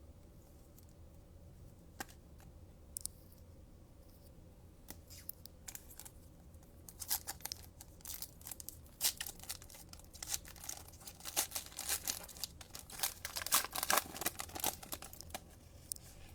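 A trading card pack's foil wrapper being torn open and crinkled. A few faint clicks and rustles at first, then from about halfway a dense run of crinkling and tearing.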